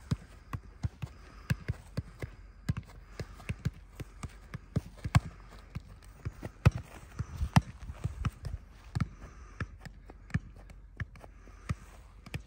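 Two footballs being juggled keepy-uppy style at the same time: a long, irregular string of dull thuds as the balls are struck on foot and knee, at about two or three touches a second, the two players' rhythms overlapping.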